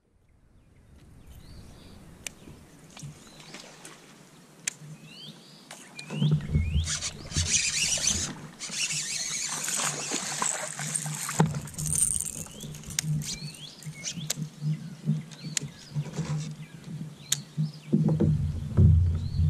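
Fishing sounds from a kayak: a baitcasting rod and reel being handled, cast and reeled in, with scattered clicks and a louder stretch of rustling and hiss in the middle. Throughout, a bird repeats a short curved chirp about once a second.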